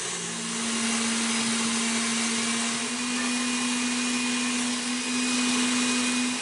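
KitchenAid Artisan stand mixer running steadily, its wire whisk beating creamed butter and sugar; a steady motor hum that steps up slightly in pitch about three seconds in.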